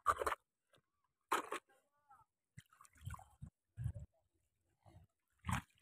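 Footsteps splashing and squelching through shallow water over a sandy bottom, a few separate steps with some low thuds between them.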